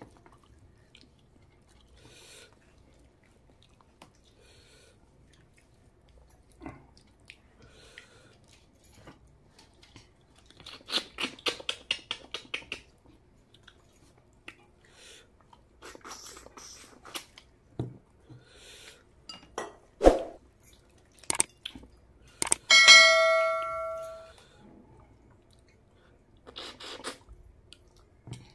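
Close-up eating by hand: scattered wet chewing and lip-smacking of curry and rice, with a dense run of chewing clicks partway through. About two-thirds in, a sharp knock, then the loudest sound, a ringing ding that fades over about a second and a half.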